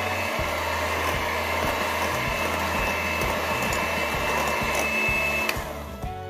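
Electric hand mixer running at medium speed, its beaters whirring steadily through thick whipped egg-and-sugar sponge batter with a steady high whine, switched off suddenly near the end.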